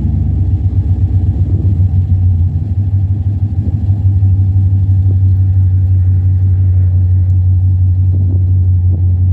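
Exhaust of a 2007 GMC Sierra V8 fitted with long-tube headers, 2.5-inch true duals, an X-pipe and a three-chamber muffler, running steadily with a deep, even drone and none of the clapping the Cherry Bomb Vortex gave it.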